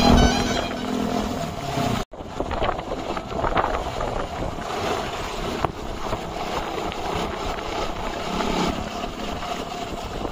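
Wind rushing over the microphone of a moving motorcycle, mixed with motorcycle engines running as other motorbikes pass the other way. The sound cuts out for an instant about two seconds in.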